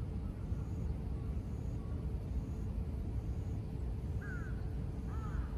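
Outdoor park ambience with a steady low rumble of distant city traffic. A faint high chirp repeats about twice a second, and a bird calls several times near the end.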